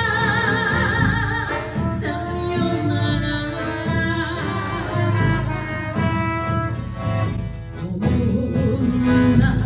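Live chindon band playing enka: trumpet, accordion and drums, with a woman singing, her held note wavering with vibrato in the first second or so.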